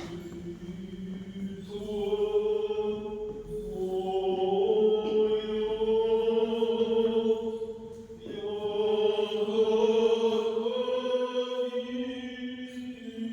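Several voices singing a slow church chant in long held notes, a lower voice sustaining a steady note beneath the melody. The singing goes in phrases of a few seconds each, with short breaks between them.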